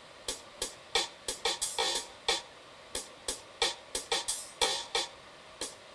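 An irregular series of short, sharp clicks or taps, two to four a second, with a pause of about half a second a little past the middle.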